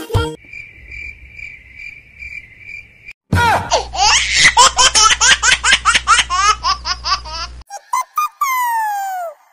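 Meme sound effects laid over the music's break: a steady cricket chirping pulsing about three times a second, then a burst of loud, rapid laughter, then a single whistle-like tone gliding downward near the end.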